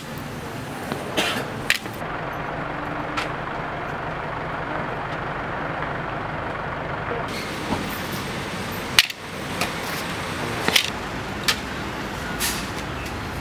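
Street ambience: a steady wash of traffic noise, with a few sharp taps scattered through it.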